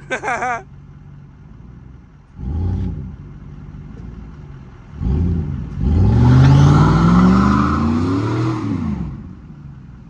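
Pickup truck engine revved in a short burst, then held at high revs for about four seconds, its pitch climbing and then falling back, over a loud hiss of spinning tyres. The crew think the truck's differential has given out.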